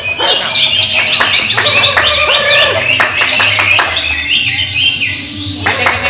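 Several caged greater green leafbirds (cucak ijo) singing at once: a dense, loud stream of rapid overlapping chirps and whistled phrases.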